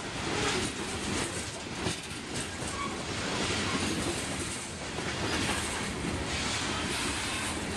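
Freight train's covered hopper cars rolling past close by: a steady rumble of steel wheels on the rails, with clacks as the wheels cross the rail joints.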